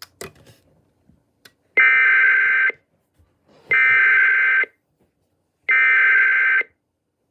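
Emergency Alert System SAME header: three identical bursts of warbling digital data tones, each just under a second long and about two seconds apart, carrying the coded flood warning alert ahead of the message.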